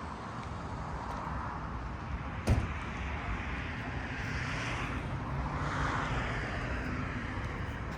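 City street traffic: cars passing, a steady low rumble with the noise swelling as a vehicle goes by near the middle. A single sharp knock about two and a half seconds in is the loudest sound.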